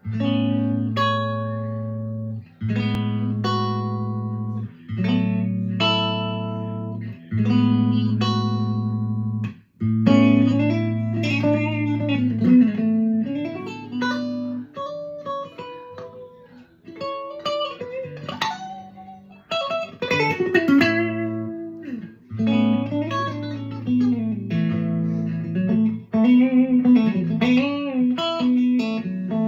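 Guitar with freshly fitted strings being played: about ten seconds of chords, each left to ring for a second or two, then a melody with bent, wavering notes over a held low note.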